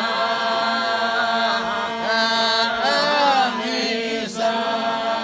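A group of men singing a Greek polyphonic song unaccompanied: several voices hold a steady drone while a lead voice sings bending, ornamented lines above it.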